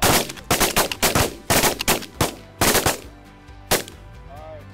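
A rapid volley of shotgun fire from several hunters shooting at once, about a dozen shots in three seconds. A last single shot comes a little later.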